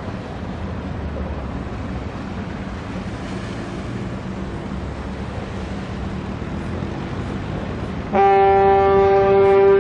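A container ship passing close by: a low engine drone with water rushing along the hull and wind on the microphone. About eight seconds in, a ship's horn starts suddenly, a loud, steady, many-toned blast that carries on past the end.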